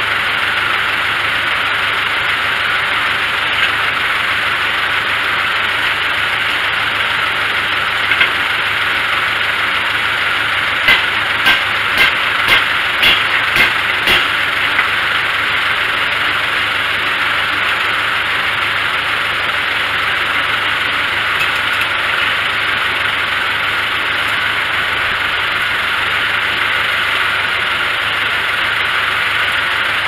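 Antique tractor engine idling steadily as the power unit for a circle sawmill. About a third of the way in, a quick run of about seven sharp knocks sounds as the log is worked over with a cant hook.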